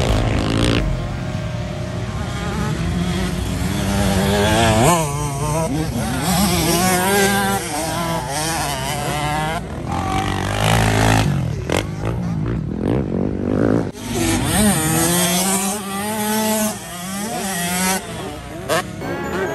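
Motocross bike engines revving hard on a dirt track. The pitch climbs and falls over and over as the throttle is opened and shut and the gears change, with brief dips where a rider rolls off.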